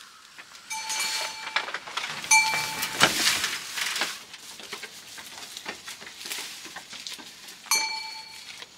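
Small metal bell on a goat's neck clinking three times as the goat feeds, each strike ringing briefly, with rustling and crackling of fern fronds in between.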